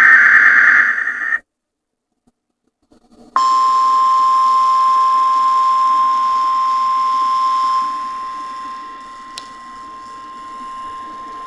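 NOAA Weather Radio alert signal on a RadioShack 12-996 weather radio. The tail of a SAME digital header, a buzzy warbling data burst, ends about a second in. After about two seconds of silence the 1050 Hz warning alarm tone starts, a single steady high tone that grows quieter about two-thirds of the way through; this is the weekly test of the tone that switches on alert receivers.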